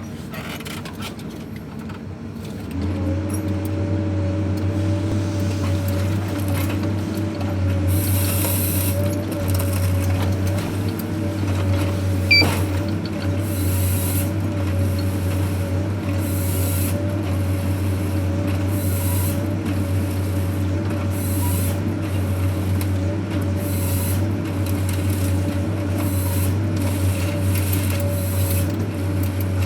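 Engine of a forest-harvesting machine running steadily, coming up to a constant drone about three seconds in. Repeated short bursts of hiss and a single sharp click near the middle sit over it.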